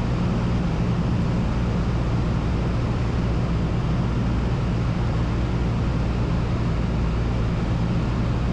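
Cessna light aircraft's piston engine and propeller running steadily, heard inside the cabin as an even drone with air noise.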